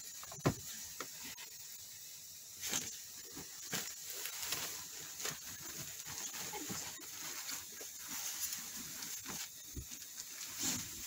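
Cotton fitted sheet rustling and swishing as it is pulled over the mattress corners, tucked and smoothed by hand, with a single thump about half a second in.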